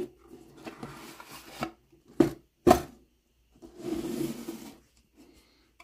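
A rigid paperboard box being handled and opened on a wooden table: its sides scrape and rub as the lid slides up, with two sharp knocks about half a second apart a little over two seconds in, then more rubbing as the lid comes free.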